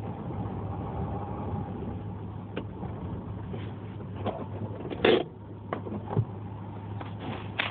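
Subaru Legacy engine running steadily, with a fainter wavering whir over it in the first couple of seconds that fades away. Several short knocks or clunks follow, the loudest about five seconds in.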